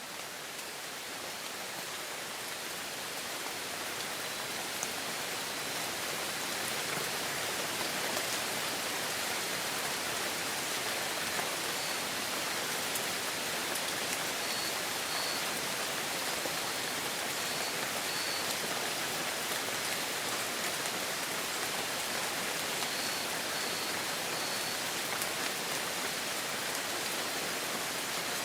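Steady heavy rain, a dense even patter that fades up over the first few seconds and then holds steady. A few faint, short high chirps come and go in the middle and near the end.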